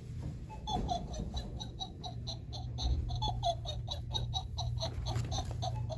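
Laughter: a rapid string of short, pitched "ha" notes, starting about a second in, over a steady low hum.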